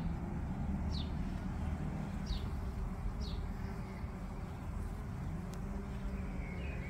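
Bees buzzing among lavender flowers close to the microphone, a steady hum. Four short, high bird chirps come in the first few seconds.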